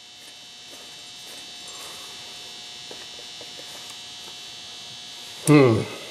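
A steady, high-pitched hiss with a faint thin whine that grows a little louder over the first second or so and then holds. About five and a half seconds in comes a short, loud vocal sound from a man, falling in pitch.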